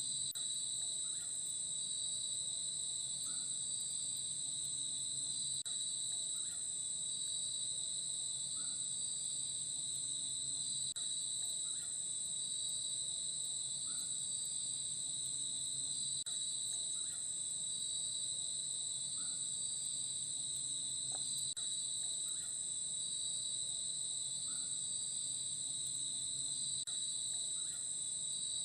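Dense forest insect chorus: a steady, very high shrill trilling with a second, pulsing insect band beneath it that beats about once a second. Over it, a short rising chirp repeats every two seconds or so, sometimes doubled.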